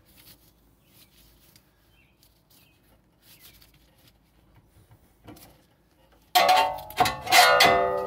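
Faint scraping and clicking of the rear brake pads being worked out of the caliper bracket, then about six seconds in a loud metallic clang, struck twice more, that rings on with several steady tones as it fades.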